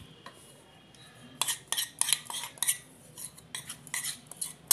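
Plastic spatula scraping and knocking against a stainless steel mixer-grinder jar while thick bread batter is scooped in: a string of sharp, irregular scrapes and clinks starting about a second and a half in.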